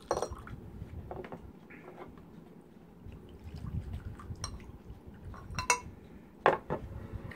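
Whisky poured from a glass bottle into two drinking glasses, a low trickle of liquid, with the bottle and glasses clinking several times. The sharpest clinks come near the end.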